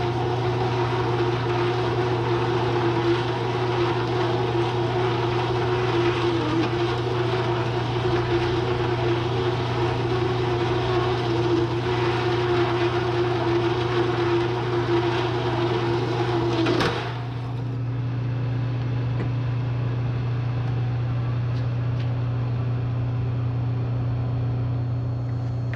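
Bridgeport milling machine cutting steel over a steady motor hum, with a held tone and a grinding hiss. The cutting noise cuts off suddenly about two-thirds of the way through, leaving the machine's motor hum.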